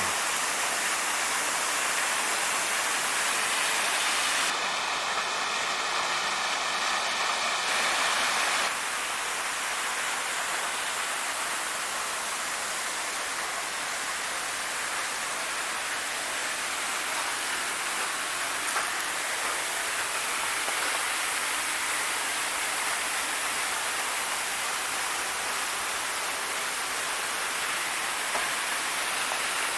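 Waterfall rushing in a steady hiss, water falling through the ice formations of the falls. A faint steady high tone sounds briefly about five seconds in.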